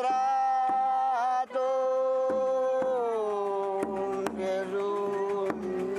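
A voice singing one long drawn-out note of a devotional chant, held steady, then sliding down about halfway through to a lower note that is held to the end, with a few sharp taps.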